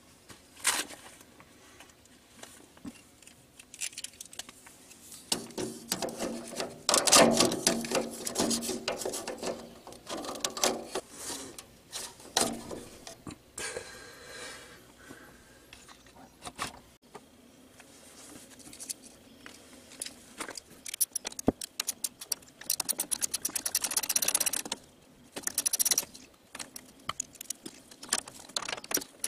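Clinks, rattles and knocks of metal and plastic parts being handled while the air intake of an Onan generator is taken apart, with a socket ratchet clicking in quick runs in the last several seconds.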